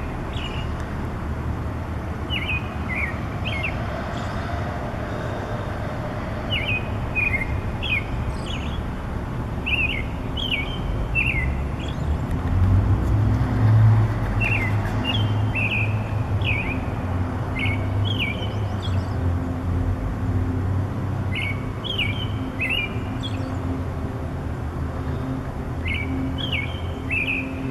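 A songbird singing short phrases of quick, clipped notes, a phrase every few seconds, over a steady low rumble of distant traffic that swells about halfway through.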